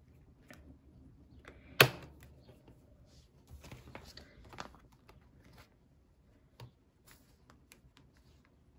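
Plastic photocard sleeve pages in a ring binder being turned and handled: light rustles and soft taps, with one sharp click about two seconds in.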